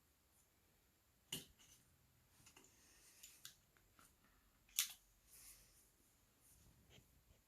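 Small, sharp clicks and taps from a phone being taken apart by hand, with a connector or part being pried and popping loose. There is a clear click about a second and a half in, fainter ticks after it, and the loudest click near the five-second mark.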